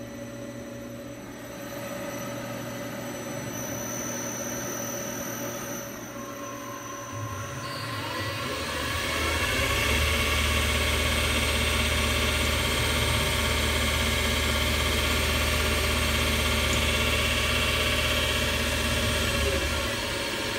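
Metal lathe running on a VFD-driven motor and new V-belt drive. The drive speeds up with a rising whine about a third of the way in, then runs steadily at speed without squeaking.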